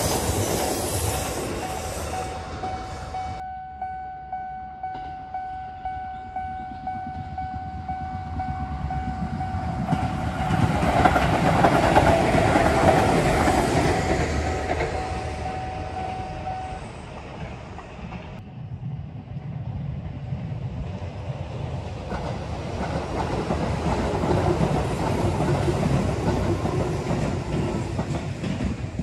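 A Sanyo Electric Railway train runs past on the tracks, its wheels clattering, and the noise swells again to its loudest around the middle. A level-crossing bell rings at an even beat of about one and a half strokes a second from a few seconds in until past the middle.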